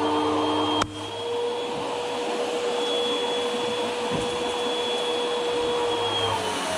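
Bosch Aquatak 125 electric pressure washer running and spraying a jet of water, its motor and pump giving a steady whine over the hiss of the spray. A sharp click about a second in, after which it runs a little quieter; near the end the whine dips briefly in pitch and comes back up.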